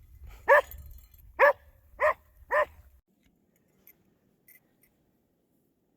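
Border collie barking four times in quick succession, each bark short and sharp, about half a second to a second apart.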